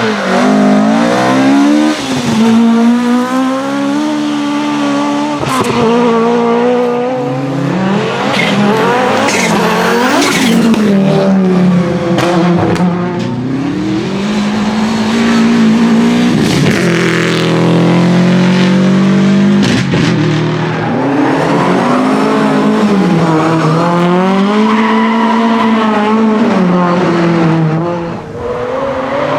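Rally car engines revving hard, rising and falling in pitch through gear changes, with tyre noise and a few short sharp cracks.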